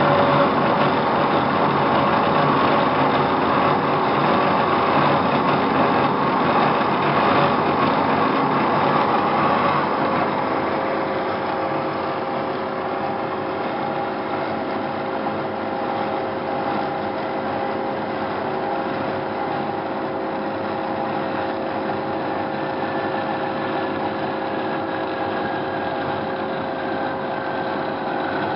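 HYD-MECH H-12A horizontal band saw running, its blade cutting through square metal tubing with a steady, dense mechanical noise. About ten seconds in the sound drops to a quieter steady machine hum with a few steady tones, and a faint whine slowly falls in pitch near the end.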